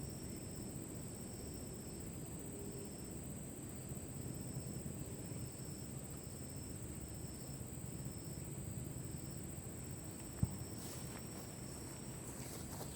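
Insects singing in woodland: one holds a steady, very high-pitched trill while another repeats a short high call a little more than once a second, over a low outdoor rumble. A single click comes about ten seconds in, and rustling starts near the end.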